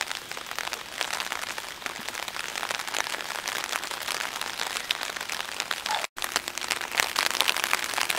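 Rain falling, with many small drop ticks close to the microphone over a steady hiss; the sound cuts out for an instant about six seconds in.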